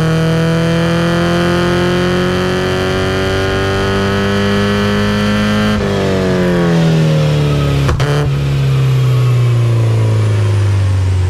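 Porsche 944's 2.5-litre eight-valve four-cylinder, breathing through a custom equal-length stepped header, running on a chassis dyno: the revs climb steadily under load for about six seconds, then the throttle closes suddenly and the revs fall away.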